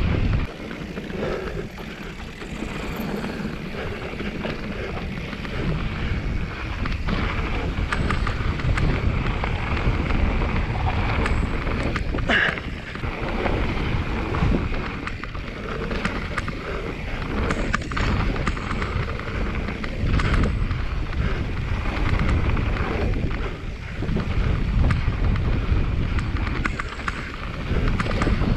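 Wind buffeting the microphone of a mountain bike's ride camera, over the rumble of knobby tyres rolling down a dirt trail, with scattered clicks and rattles from the bike over bumps.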